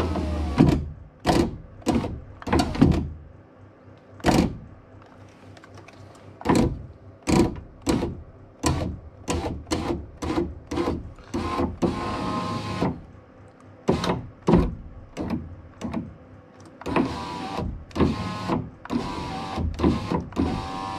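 Electric window regulator motor in a Saab 9-3's rear door running in short bursts of a second or two, with many sharp knocks and rattles from the exposed mechanism and door shell between and during the runs. The rattle is one the mechanic traces to a loose piece of broken glass inside the door.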